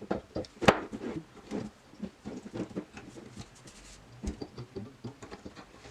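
Warp string being wound around the nails of a small wooden loom and pulled taut: a run of small clicks, taps and rustles, with one sharper click under a second in.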